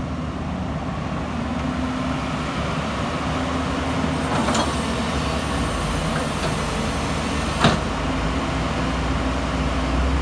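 JCB JS205SC tracked excavator's diesel engine idling steadily. Two short clicks cut through it, a faint one about four and a half seconds in and a sharper, louder one about three seconds later.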